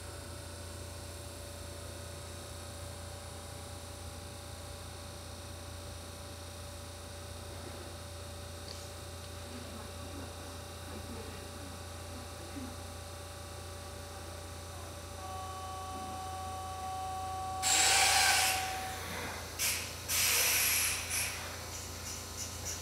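Steady low hum on a railway platform. Near the end come two loud hissing bursts a couple of seconds apart, each over a second long, like compressed air released from a train standing at the platform, followed by a few light clicks.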